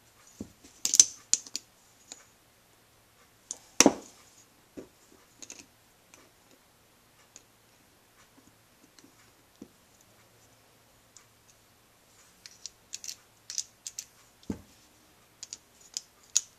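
Small metal parts of a Honda Z50A carburetor clicking and clinking as they are fitted by hand: scattered light clicks, with a sharp knock about four seconds in and a duller knock near the end.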